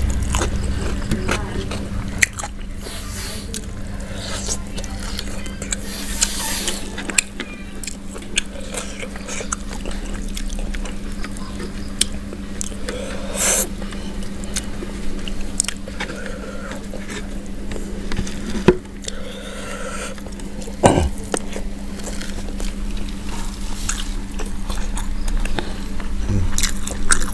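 Close-up chewing and biting of fried free-range chicken with rice and sambal, with many short wet mouth clicks, over a steady low hum.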